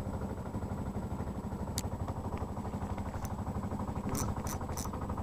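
A boat engine running steadily at idle. A few sharp ticks sound over it, one about two seconds in and three in quick succession near the end.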